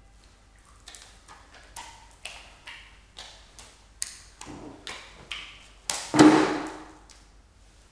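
Raw hearts being juggled, each catch a short, soft slap in the hands, about two a second. About six seconds in, one is dropped and lands on the floor with a loud, heavy thud.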